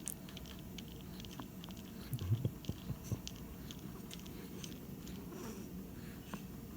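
A drowsy pet's faint mouth sounds: scattered small clicks, with a few soft low thumps about two seconds in.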